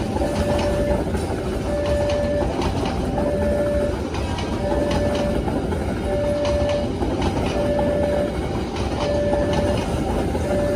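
A train running past on the rails: a steady low rumble with wheel clicks. Over it, a level-crossing warning alarm repeats one tone, each lasting under a second and coming about every second and a half.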